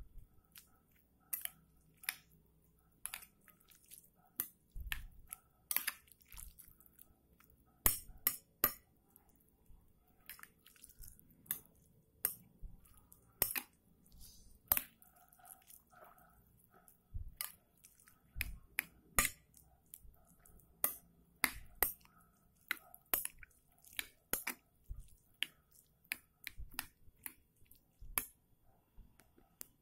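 Metal spoon clinking and knocking against a bowl while stirring instant noodles and cucumber slices, in irregular sharp clicks about one or two a second.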